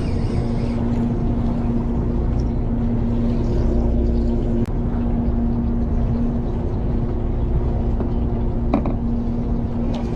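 A boat's engine running with a steady hum and low rumble, with a couple of brief knocks.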